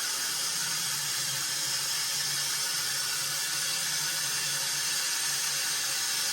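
Cold tap water running steadily through a hose into the washing machine's tub as it fills for the rinse, a constant rushing hiss with a faint low hum underneath.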